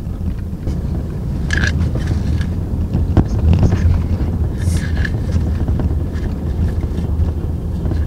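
Steady low rumble of a car's engine and road noise heard inside the cabin. A few short rustles and a sharp click about three seconds in cut across it.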